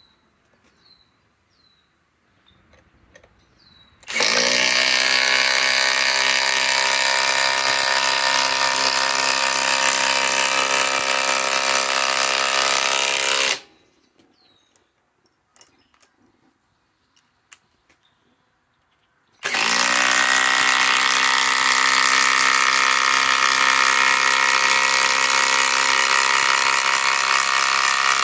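SKIL PWR CORE 20 impact driver hammering 5-inch power lag screws into a thick timber beam: two long, steady drives of about nine to ten seconds each. The first starts about four seconds in, and the second starts about six seconds after the first stops.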